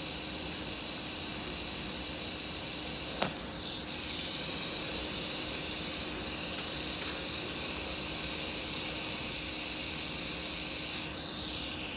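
DC lift-arc TIG welding arc from a Blue Demon BlueArc 200MSTI inverter welder at about 82 amps on a steel T-joint: a steady, even hiss with the argon shielding gas flowing. A single sharp click comes about three seconds in.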